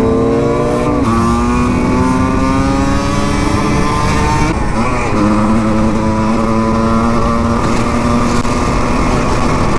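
Husqvarna SM 125 two-stroke single-cylinder motard engine pulling under way. Its pitch climbs, drops at gear changes about a second in and about four and a half seconds in, then holds nearly steady.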